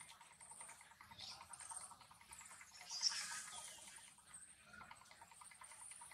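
Faint outdoor ambience with scattered small clicks, a steady high hiss, and a brief high chirp about three seconds in.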